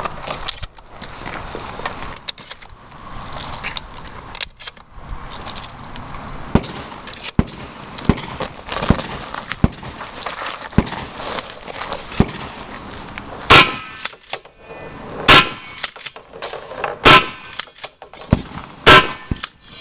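Four shotgun shots, evenly spaced under two seconds apart, in the second half. Before them come scattered small clicks and knocks.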